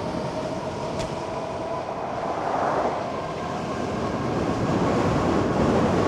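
E-bike motor whining steadily under pedal assist, over the rumble of tyres and wind. A short click about a second in.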